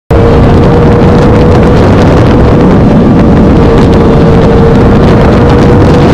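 Sport motorcycle running at a steady highway cruising speed, its engine note held at one even pitch under loud rushing wind on the bike-mounted microphone. The sound cuts in abruptly at the start.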